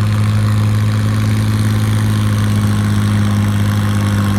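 Farmall 460 tractor's six-cylinder engine wound up at full throttle, holding a steady pitch as it lugs under the load of the pulling sled.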